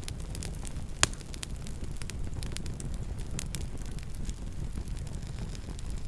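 Campfire burning, with a steady low rumble of flame and many small crackles, and one sharp loud pop about a second in.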